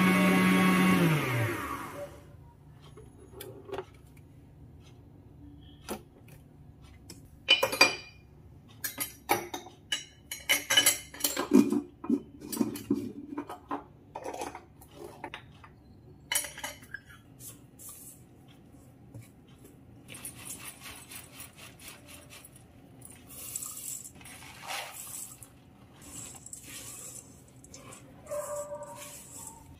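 Inalsa Kratos stand mixer's motor switched off, its hum falling in pitch and dying away about a second in. Then a spatula and utensils knock, clink and scrape against the steel mixing bowl, with a rustling stretch as dry rolled oats are stirred into the dough.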